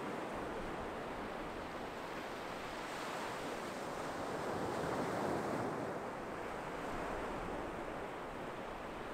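Ocean surf on a beach: a steady wash of waves, swelling as a wave breaks around the middle and then easing off.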